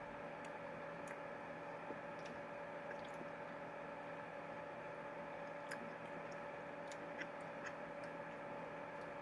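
Faint scattered clicks and squishy mouth sounds of someone eating an ice cream sandwich, over a steady electrical hum.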